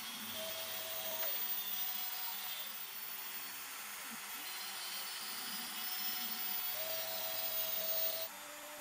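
A CNC router's AMB spindle runs at speed while a 1/8-inch end mill cuts a pocket into an end-grain hardwood board, 3 mm deep per pass. A steady tone joins the cutting noise twice, and the sound drops suddenly in level near the end.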